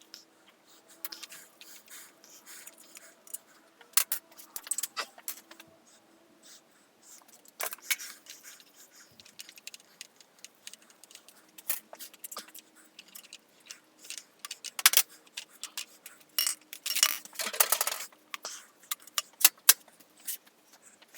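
Small steel engine parts clinking and clicking as motorcycle connecting-rod caps are unbolted, taken off and set down one after another, in irregular taps with a dense cluster of clinks near the end.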